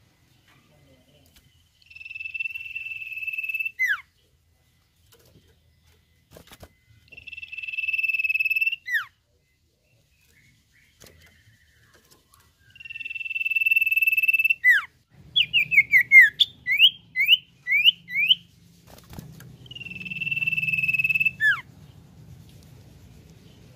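Common iora (cipoh) singing its long whistle: four steady, high whistles of about two seconds each, every one ending in a quick falling note. Between the third and fourth comes a rapid run of about eight short falling whistles.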